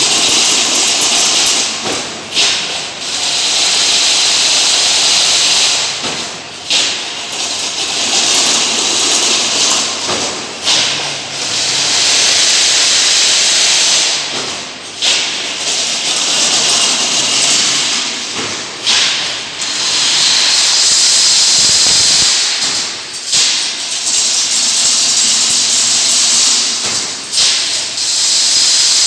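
Automatic chain-link fence weaving machine running: a loud, steady hiss, broken about every four seconds by a short clack and a brief dip as the machine cycles through each weave.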